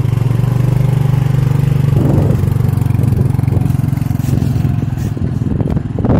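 Small motor scooter engine running close by as it rides off at a steady pace, with a few short knocks near the end.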